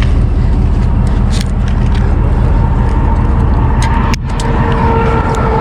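Steady loud traffic noise from interstate vehicles: a low rumble throughout, with a faint whine coming in about three seconds in.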